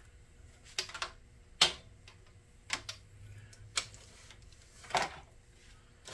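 A series of sharp, separate clicks and taps of small hard objects, about six at uneven spacing of roughly a second, the loudest about a second and a half in.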